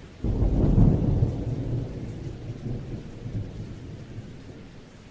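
Thunder with rain: a sudden deep rumble about a quarter second in that fades slowly, over a steady hiss of rain.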